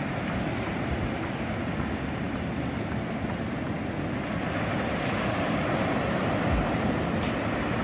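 Ocean surf breaking and washing up a wet sandy beach, a steady rushing noise, with wind buffeting the microphone.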